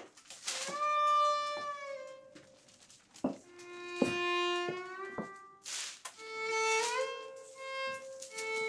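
Solo violin playing slow, held phrases with sliding notes, some of them bending like a cat's meow. Between the notes come short bursts of newspaper rustling as the sheets are handled.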